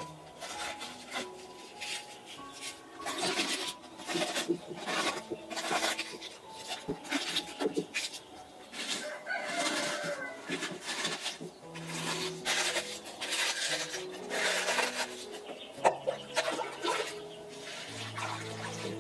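Crisp tearing and snapping of cabbage leaves being pulled off the head by hand, with chickens clucking in the background. Water splashes briefly near the end.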